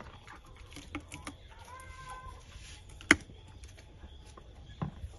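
A horse chewing a carrot: scattered crunching clicks, with one sharp crack about three seconds in.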